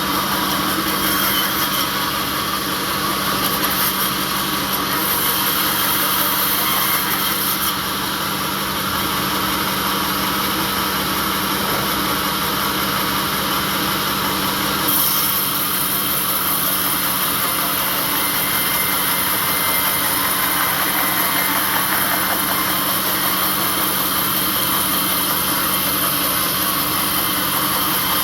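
Sawmill machinery running steadily: a constant low hum under a dense high hiss, with the hiss changing a little about halfway through.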